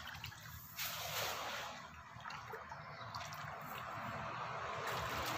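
Shallow muddy water sloshing and trickling around a person wading in it, with a brief surge of splashing noise about a second in.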